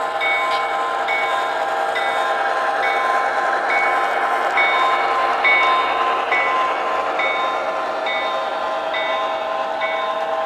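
Model C&O passenger train running past: steady motor and wheel noise on the track, with a bell ringing evenly about once a second.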